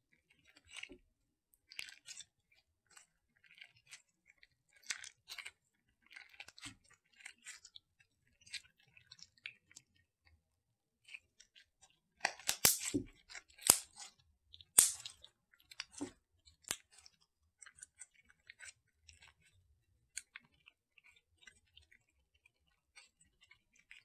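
Glittery clay slime being kneaded and squeezed by hand: small sticky clicks and squelches scattered throughout, with a run of louder pops about halfway through.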